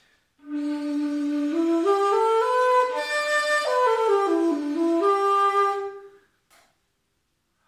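Low G dizi (Chinese bamboo flute) with a buzzing dimo membrane, playing a scale. It starts on the flute's lowest note, D, climbs step by step about an octave, then comes back down. It is played to check the buzz of the membrane, which has just been moistened and pulled smooth.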